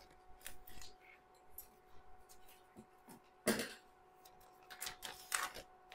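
Plastic bag being cut open with poultry shears and pulled apart by hand: scattered soft crinkles and small clicks, with a louder knock about three and a half seconds in and a quick cluster of rustles near the end. A faint steady hum runs underneath.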